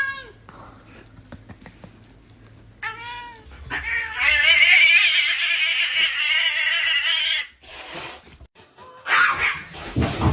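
Domestic cat meowing once, then letting out a long, loud drawn-out yowl of about four seconds that wavers in pitch.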